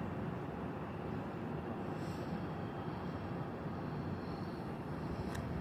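Steady low rumbling outdoor background noise, with one sharp click about five seconds in.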